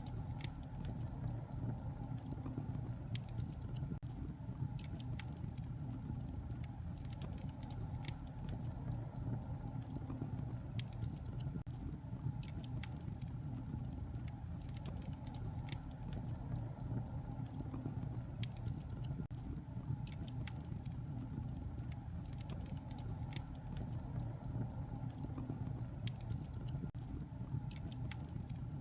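Wood fire burning in a fireplace: a steady low rumble of flames with frequent, irregular sharp crackles and pops.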